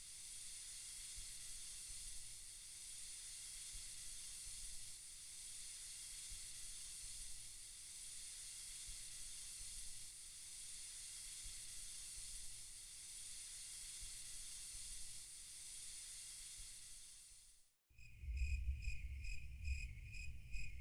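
Steady soft white-noise hiss, which cuts off suddenly near the end. Crickets then chirp in a quick, even pulse over a low rumble.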